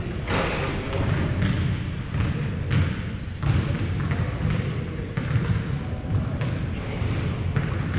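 Basketballs bouncing on a hardwood gym floor, a string of irregular thuds from dribbling throughout, over a steady low rumble of the hall.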